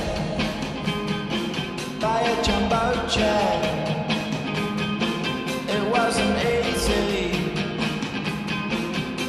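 Rock song with singing, guitar and a steady drum beat: the goal song that plays on after an NHL goal horn.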